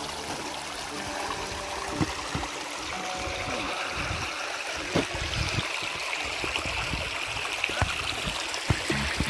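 Shallow mountain creek trickling over stones, a steady rush of running water. Several sharp clicks stand out over it, the loudest about two and five seconds in.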